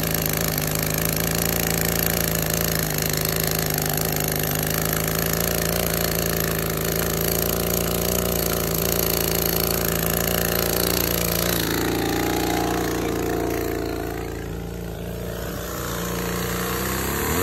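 Small two-stroke engine of an Echo top-handle chainsaw idling steadily, dipping in level for a few seconds late on, then starting to rev up right at the end.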